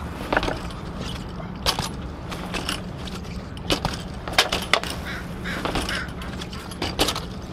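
BMX bike riding over concrete and up a wall: scattered sharp clicks, rattles and knocks from the bike, over a steady low hum.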